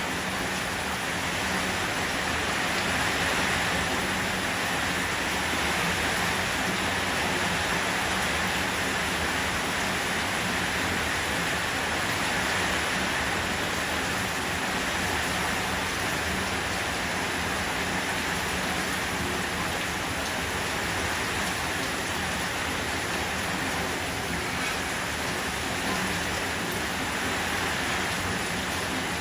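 Steady rain falling beside a rushing mountain stream, an even, unbroken hiss of water.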